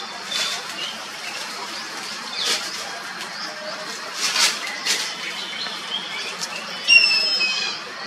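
Faint high bird chirps and a few brief rushing swishes, then, about seven seconds in, a loud, high, slightly falling squealing call lasting under a second from an Indian grey hornbill.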